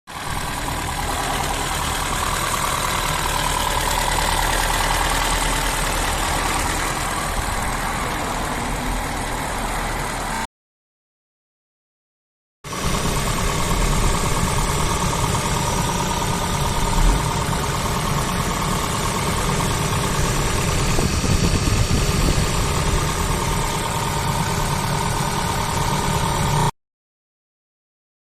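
Honda Fit 4 e:HEV hybrid's petrol engine running steadily, in two takes broken by a silent cut about ten seconds in.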